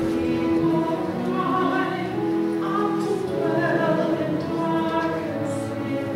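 A church hymn sung over a held, sustained accompaniment, with long steady notes and a melody line that moves between them.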